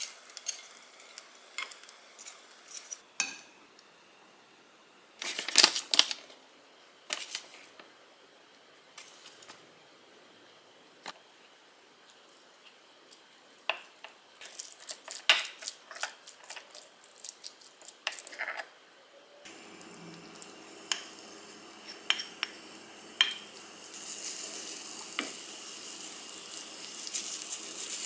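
Kitchen utensils clinking and scraping on a nonstick pan and a ceramic bowl, with the loudest clatter about five seconds in. From about two-thirds of the way through, a steady sizzle of cabbage, ham and flour okonomiyaki batter frying in the pan, which grows louder near the end.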